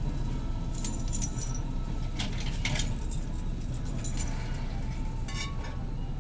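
Glass whiskey bottles clinking and rattling against each other in several short bursts as they are lifted from a box and set on cabinet shelves, over a steady low background hum.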